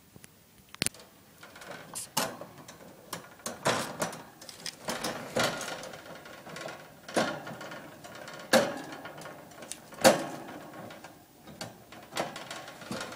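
Irregular metallic clicks and rattles of a wire pet cage's bars, in uneven bursts with a few sharp knocks.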